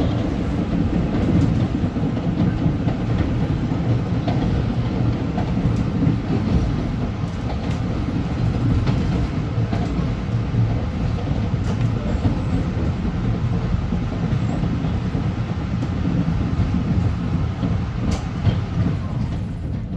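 LIRR M3 electric multiple-unit train running steadily on the rails, a continuous low rumble of wheels and running gear with scattered faint clicks of the wheels over rail joints.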